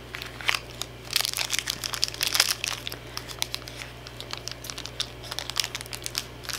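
Crinkling and rustling of a Shopkins blind-pack wrapper being handled and pulled open, in quick crackly clusters that are busiest in the first few seconds and then come more sparsely.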